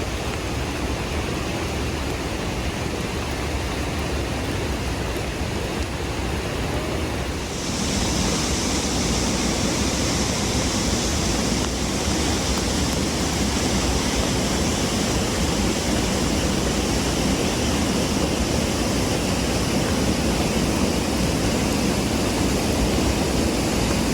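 Steady rush of a waterfall, rising slightly louder and gaining a brighter hiss about eight seconds in.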